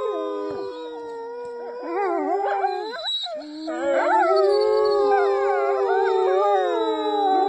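A pack of grey wolves howling in chorus with a woman howling through cupped hands: several long, overlapping howls at different pitches that slide up and down. The chorus thins briefly about three seconds in, then swells louder again.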